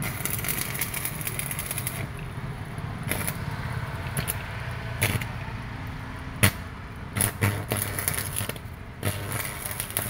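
Electric arc welding on steel: the arc crackles and sizzles in uneven spells, broken by a string of sharp pops from about three seconds in, over a steady low hum.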